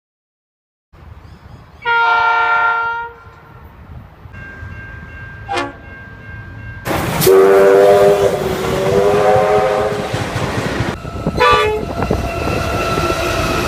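Train horns sounding in separate blasts: a short chord about two seconds in, then a longer blast over the loud rushing noise of a passing train from about halfway, and another short blast near the end.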